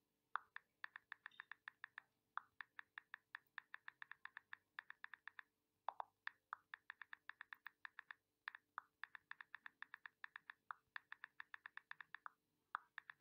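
Quiet, rapid typing: keys tapped several times a second in quick runs with short breaks. It is the sound of a phone number being typed in.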